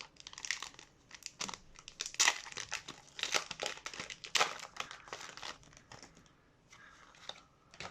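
Foil wrapper of a Pokémon booster pack crinkling and tearing as it is opened, a run of sharp crackles that dies down near the end.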